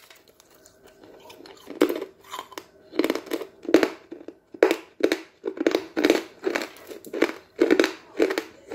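A person chewing a piece of eggshell, crunching about twice a second from about two seconds in.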